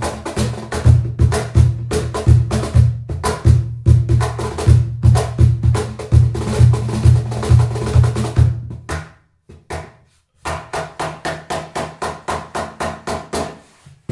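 Hand-played cajon with a 10 mm plywood body and internal snare strings: a fast groove of deep bass strokes and sharp slaps on the wooden front plate. A little past halfway it fades and stops for about a second, then comes back as quieter, quick, even strokes without the deep bass.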